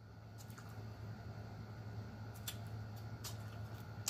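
Faint mouth sounds of eating by hand, a few scattered sharp wet clicks and smacks of chewing, over a low steady hum.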